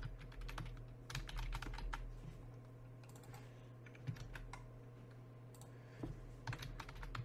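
Computer keyboard typing: quick runs of keystrokes in three short bursts with pauses between, over a faint low hum.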